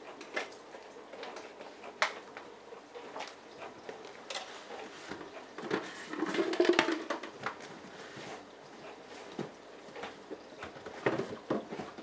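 Bosch Logixx washing machine filling for its prewash: water splashing and pattering into the drum, with irregular small clicks and a louder stretch of noise about six seconds in.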